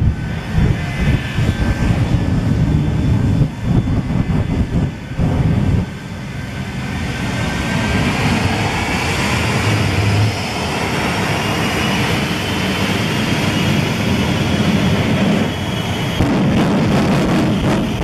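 Shockwave jet truck's afterburning jet engines running at full power. An uneven low rumble for the first six seconds gives way to a steady loud jet roar with a high whine.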